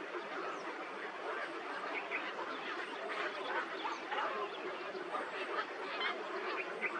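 A flock of birds calling together: many short, overlapping calls in a dense, continuous chatter.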